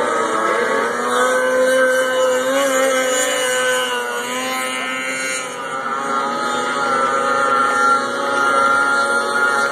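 Racing snowmobile engine running at high revs as the sled skims across open water, a steady high whine that eases briefly around the middle before holding again.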